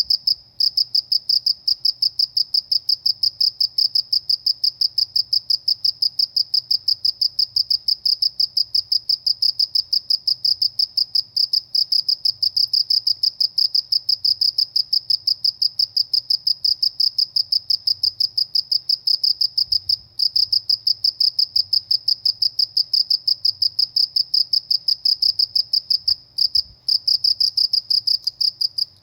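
A cricket chirping loudly and steadily, a high-pitched chirp repeated about four or five times a second, pausing briefly about two-thirds of the way through and again near the end.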